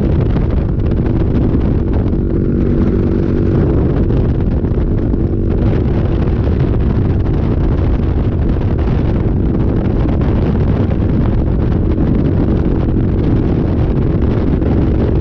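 Yamaha Virago 250's small air-cooled V-twin engine running steadily at cruising speed, with wind rushing over the microphone.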